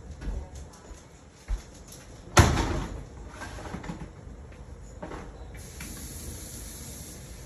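Knocks from something out of view: a small knock about a second and a half in, then a loud, sharp bang about two and a half seconds in that trails off briefly, with lighter knocks around them. A steady faint hiss sets in about five and a half seconds in.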